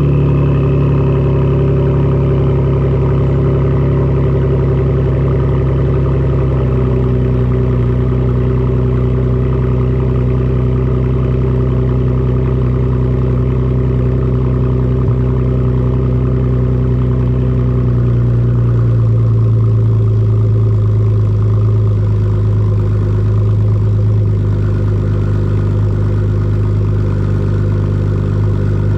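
2014 Ford Taurus SHO's twin-turbo V6 idling on a cold start through a custom X-pipe exhaust, with a higher-pitched tone. The idle speed steps down twice, about six seconds in and again about eighteen seconds in, as the cold-start fast idle settles.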